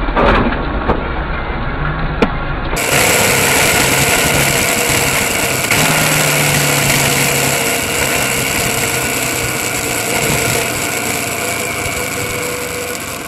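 Muffled dashcam road noise with a few sharp knocks in the first few seconds, then a motorcycle engine running steadily at road speed, with road and wind noise.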